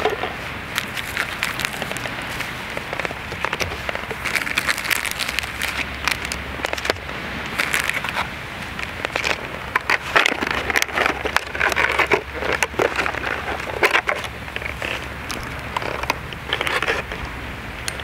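Canvas tote bag being handled, the fabric and its contents rustling and crinkling in irregular bursts with scattered clicks.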